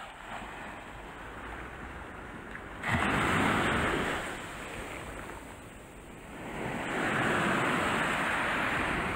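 Sea surf washing up over sand as small waves break. There are two louder surges, one starting suddenly about three seconds in and another swelling up from about seven seconds.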